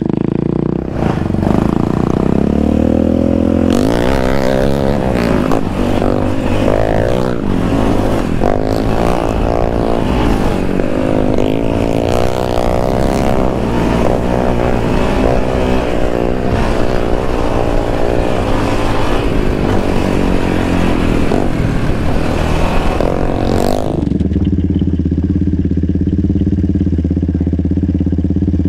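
Yamaha Raptor 700 sport ATV's single-cylinder engine being ridden hard on dirt, the revs rising and falling again and again with a rush of wind and roost noise over it. It settles to a steadier drone near the end.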